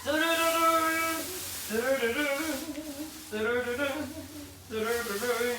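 A woman's voice singing a short tune in four held phrases, the notes wavering slightly.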